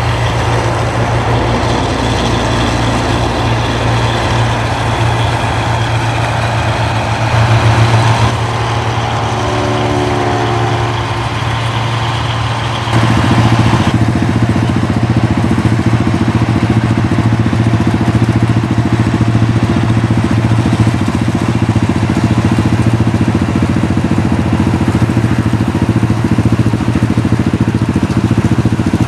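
New Holland Clayson 1545 combine harvester running steadily as it harvests rice: a constant low engine drone with its threshing machinery. A rising tone comes in about a third of the way through, and from about halfway the drone is louder and closer.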